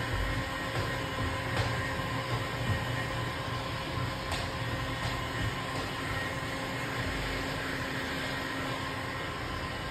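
Handheld heat gun running steadily, its fan blowing with an even hum, while it heats window-tint film to shrink it onto a car windshield.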